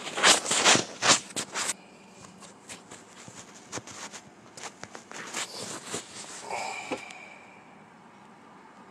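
Handling noise from a handheld phone being moved about: a quick run of loud rustles and knocks on the microphone for about two seconds, then quieter scattered rustling that dies away about seven seconds in.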